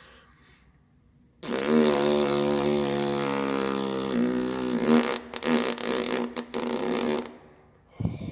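A long, loud fart noise lasting about six seconds. It holds a low, steady pitch, then breaks into sputters for the last couple of seconds.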